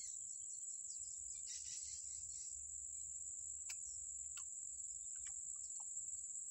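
Steady, unbroken high-pitched drone of insects chirring in the undergrowth, with a few short chirps near the start and a couple of faint sharp ticks.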